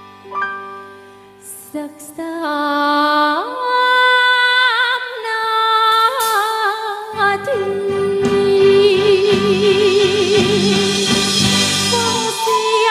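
A woman singing a slow ballad live into a microphone with band accompaniment, holding long notes with vibrato. The bass and fuller band come in about seven seconds in, under a long held note.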